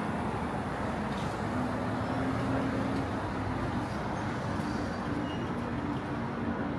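Street traffic noise: a steady wash of passing vehicles with a low engine hum that comes and goes.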